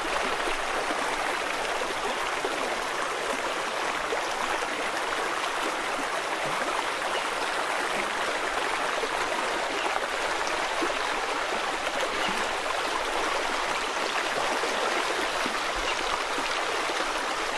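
Shallow stream running over stones: a steady babble of flowing water.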